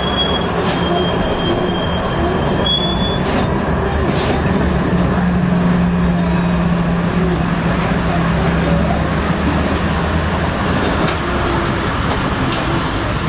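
Inside a moving tram: a steady rolling rumble and low motor hum, with a thin high squeal during the first three seconds and a few scattered clicks.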